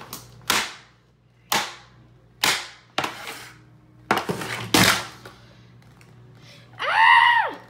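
A series of about six sharp gunshot-like bangs, each cut short as it fades, followed near the end by a short high cry that rises and falls.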